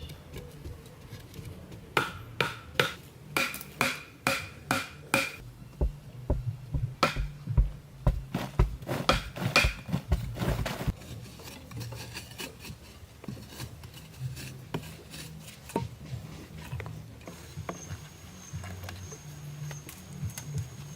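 Hand-tool work: a run of sharp knocks, two or three a second and some with a short ring, from about two seconds in until about eleven seconds in, then quieter scraping and rubbing.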